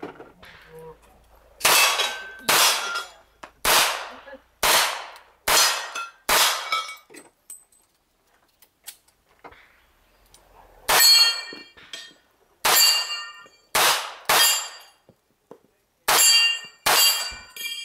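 Revolver shots fired at steel plate targets, each sharp crack followed by the clang and ring of struck steel. The shots come in two quick runs, about six and then about eight, with a pause of roughly four seconds between.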